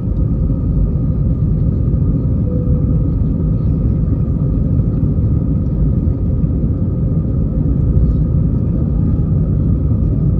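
Inside the cabin of an Airbus A320-214 climbing out after takeoff: its CFM56 engines at climb power and the rushing airflow make a steady, loud low rumble, with a faint steady drone on top.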